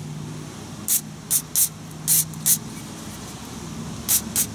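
Aerosol brake cleaner sprayed in about seven short hissing bursts onto a brake caliper bracket and its pad clips to clean them.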